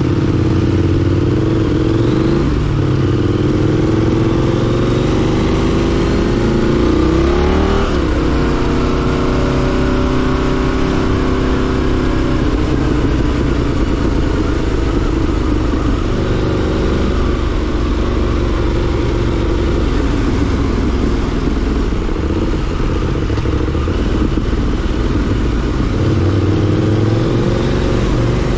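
KTM 890 Duke's parallel-twin engine under way, the revs climbing and dropping at gear changes about two and a half and eight seconds in, then running at fairly steady revs with small throttle changes.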